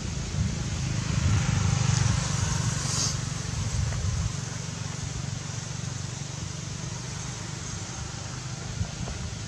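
Steady low outdoor rumble, like wind on the microphone or distant traffic, swelling for a couple of seconds about a second in, then settling.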